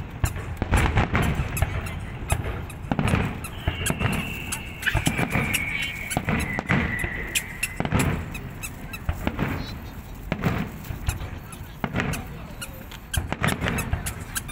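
Fireworks bursting in quick succession, a steady run of bangs and crackles, with a high whistle that falls in pitch from about four to eight seconds in.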